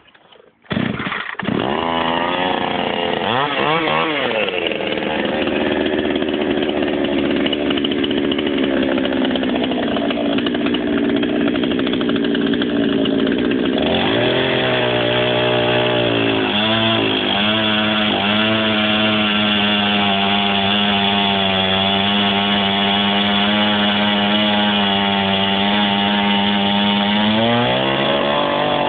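Two-stroke chainsaw on a homemade chainsaw mill comes in loudly about a second in, revs up and down once, then runs at high speed for the rest of the time, the pitch dipping briefly a few times as it works through the log.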